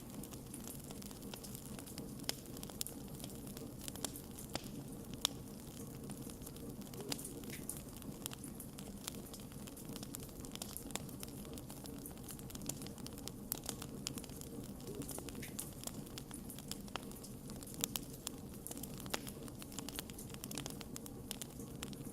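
Wood fire burning in a fireplace: irregular sharp crackles and pops from the logs over a steady low rush of the flames.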